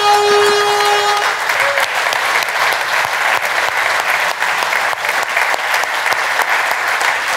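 Audience applauding: a crowd clapping steadily. A held musical tone fades out about a second in.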